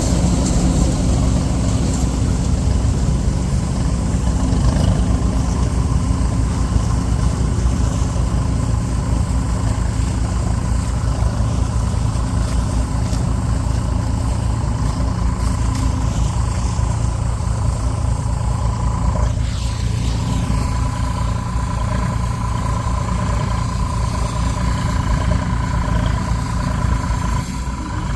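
Large diesel farm machine engine running steadily, with a steady high whine above the engine note that becomes plainer in the second half.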